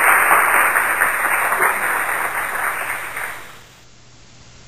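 Audience applause, fading out about three and a half seconds in and leaving a quiet room with a low steady hum.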